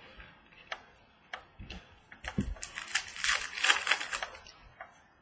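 Glossy Optic baseball trading cards being handled on a table: a few light clicks and taps, then about two seconds of rapid flicking and rustling as a stack of cards is thumbed through, with a dull thump on the table about two and a half seconds in.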